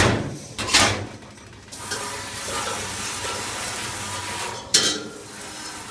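Metal dishwasher parts clanking twice, then water spraying steadily for a few seconds as the parts are rinsed off, with another sharp clank near the end.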